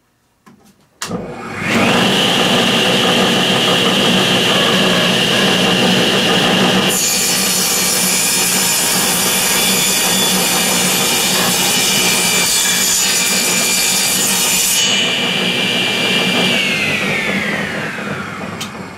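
A table saw is switched on with a click and its motor spins up to a steady high whine. About six seconds in, a wooden board is fed across the blade to cut a notch, adding a harsh cutting noise for about eight seconds. The saw is then switched off, and the whine falls in pitch and fades as the blade coasts down.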